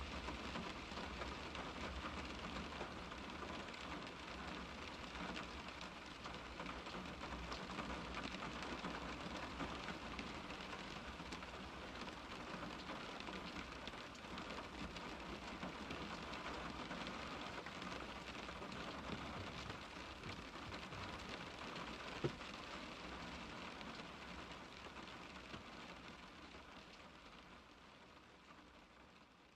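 Steady rain falling on a car's window glass, heard from inside the car, with one sharp tick about three quarters of the way through; it fades out near the end.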